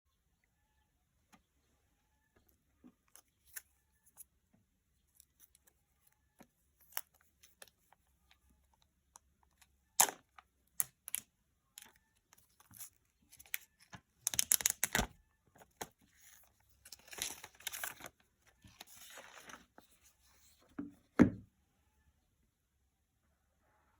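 Packaging of an iPhone 12 mini box being unwrapped by hand: scattered small handling clicks, then bursts of tearing and crinkling in the middle and latter part. Two sharp knocks, about ten seconds in and near the end, the second the loudest.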